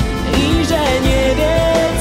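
Background music: a pop song with a voice singing a gliding melody over instruments. The vocal line comes in about half a second in.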